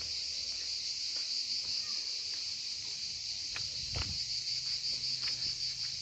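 Cicadas singing in chorus: a steady, high-pitched rasping din that turns slightly pulsing in the second half, with one faint knock about four seconds in.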